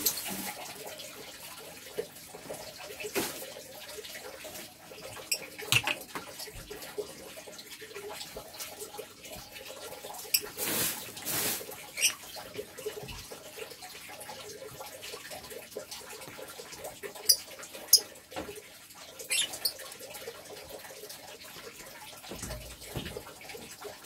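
Caged lovebird: scattered short, sharp high calls and clicks over a soft rustling background, with two sharp ones close together a little after the middle.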